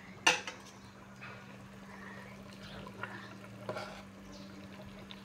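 A metal ladle knocks sharply against a metal cooking pot once, then clinks lightly as it stirs the fish in its sauce, over a steady low hum.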